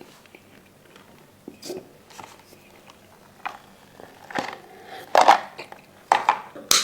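A person biting and chewing turkey, with scattered short crunching and smacking sounds that get louder in the second half.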